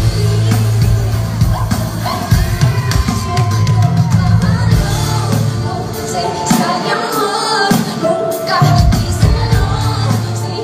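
Live pop concert music: a woman sings into a microphone over a band with electric bass, and the crowd shouts and sings along.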